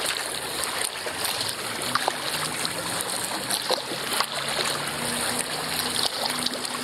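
Water trickling and splashing along a kayak's bow and off the paddle blades as it is paddled, with small scattered drips.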